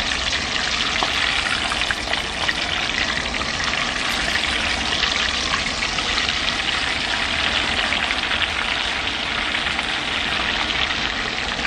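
Chicken wings deep-frying in very hot oil in a pot: a steady, loud sizzle and crackle of vigorously bubbling oil.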